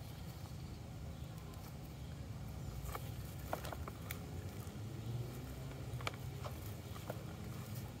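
Potting soil and potato roots crumbling and rustling as a potato plant is pulled apart from its dirt by hand, with a handful of small sharp ticks of falling clumps. Under it runs a steady low rumble.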